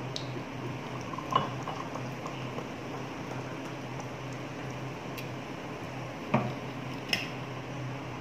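Orange soda poured from a bottle into a glass, fizzing, with a sharp knock about a second in and two more near the end as bottle and glass meet the table. An electric fan hums steadily underneath.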